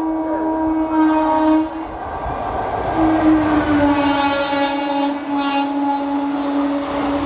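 Indian Railways WAP-4 electric locomotive sounding its horn in two long blasts as it passes. The second blast drops slightly in pitch as the locomotive goes by. The rush of the train's wheels and coaches on the rails runs underneath.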